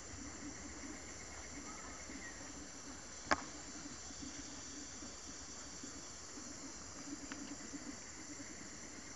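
Forest insects droning steadily at a high pitch, with a single sharp click about a third of the way in.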